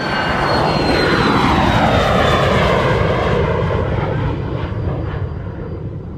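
Jet aircraft climbing out overhead after takeoff: a loud rushing roar that swells up, with a whine sliding down in pitch as it passes, then slowly fades away.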